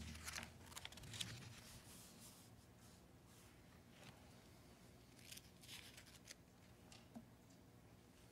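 Faint, intermittent rustling of thin paper pages being handled in an open Bible, over quiet room tone.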